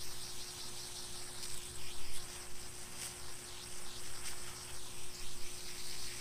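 Water from a garden hose spray nozzle hitting a foam ERV filter pad, a steady hissing spray, as the dust is rinsed out of the filter.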